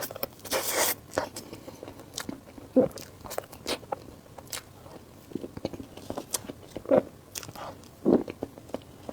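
Close-miked eating: irregular bites, crunches and wet mouth clicks of someone chewing food, with sharper bites about three, seven and eight seconds in and a longer noisy slurp or rustle about half a second in.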